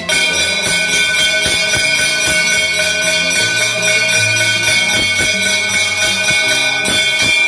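Hanging brass temple bells rung by hand, struck over and over several times a second while their tones ring on together.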